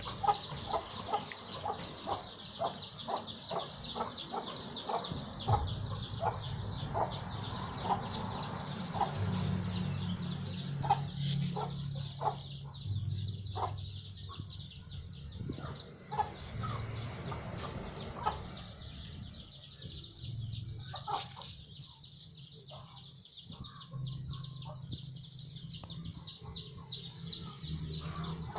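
Hens clucking in a run of short repeated calls over a steady high-pitched buzz. The clucks are frequent for the first dozen seconds, then come more sparsely.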